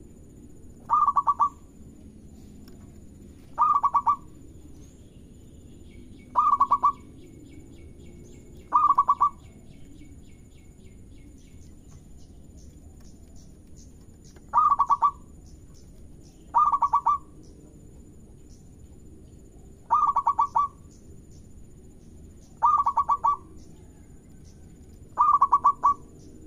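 Zebra dove (perkutut) calling: nine short bursts of quick, rolling coo notes, each about half a second long and a few seconds apart.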